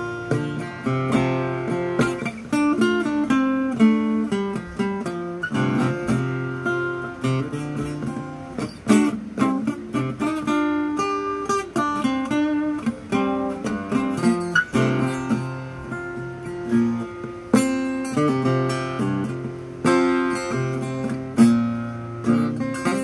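Steel-string acoustic guitar flatpicked: quick runs of single notes mixed with strummed chords, in a country-style picking solo.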